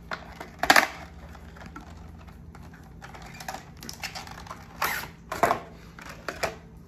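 Plastic phone-case packaging being opened and handled, the case slid out of its box and plastic sleeve: scattered clicks and crinkling, the sharpest click under a second in and another cluster around five seconds in.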